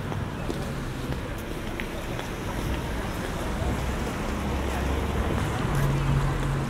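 City street traffic ambience on a wet road: a steady wash of traffic noise with a low engine hum that swells near the end. Faint light clicks run over it.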